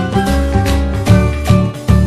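Instrumental background music with a steady beat of about two beats a second.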